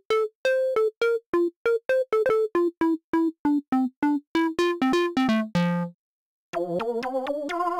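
Korg Polysix software synthesizer playing its "Square Bass" preset: a quick line of short, detached bass notes, about four a second, ending on a longer low note. After a brief gap near the end, the "Unison Bass" preset starts with a thicker, wavering detuned tone.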